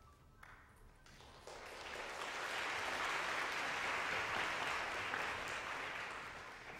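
Theatre audience applauding between musical numbers of a ballet. The clapping swells over the first couple of seconds, holds, then dies away near the end.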